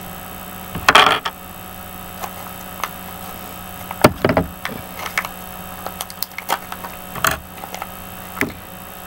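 Hands opening a Kinder Joy plastic toy capsule and unwrapping the toy inside: scattered plastic clicks and crinkles, the loudest about a second in, around four seconds in, and just past seven seconds.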